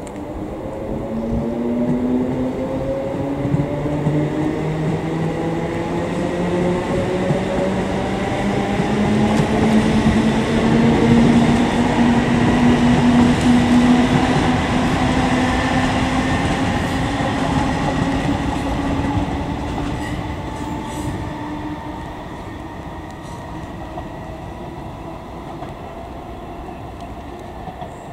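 Class 318 electric multiple unit accelerating past, its traction motors whining in several tones that climb steadily in pitch, over the rumble of wheels on rail. The sound is loudest about halfway through and then fades as the train draws away.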